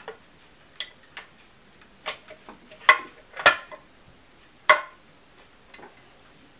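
Hard clicks and clinks as a D-cell battery holder is set into a ceramic fountain's battery compartment and the ceramic lid is handled. There are a few light ticks, then the loudest knocks come about three seconds in, half a second later, and near five seconds in.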